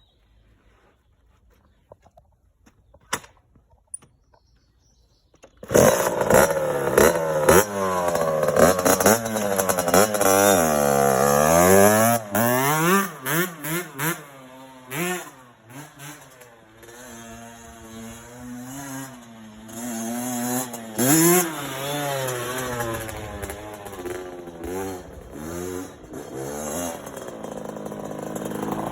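Kawasaki KX60's small two-stroke single-cylinder engine firing on the first kick from cold about six seconds in, after a few faint clicks. It is then revved up and down over and over, later settling to a lower, uneven idle with occasional blips as it warms up.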